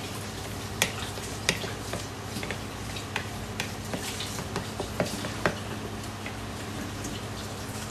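Light clicks and taps of a utensil against a bowl while cupcake batter is handled, about ten over the first five and a half seconds, over a steady low hum.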